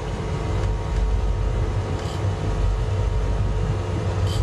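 Sport-fishing boat's engine running steadily under way, a low rumble with a faint steady hum above it; two faint clicks about two seconds apart.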